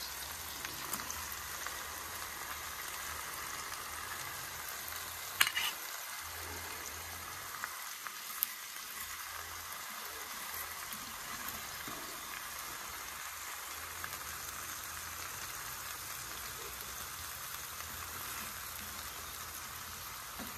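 Burgers, sausages, pork and onions sizzling steadily on a hot flat-top barbecue griddle, with a few light clicks and one sharper click about five seconds in.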